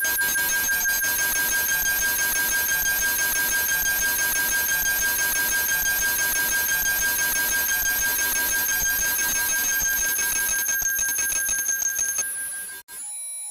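Loud, fast-pulsing, alarm-like ringing made of several steady high tones. It fades out about twelve seconds in, and a short burst of a different pulsing tone follows just before the end.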